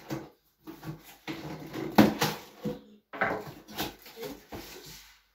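Packing tape on a cardboard box being slit with a knife and the cardboard flaps pulled open: a run of irregular scraping, crackling rustles, loudest about two seconds in.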